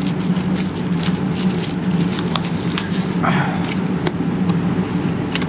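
Trading cards and foil pack wrappers being handled, with scattered sharp clicks and rustles over a steady low hum.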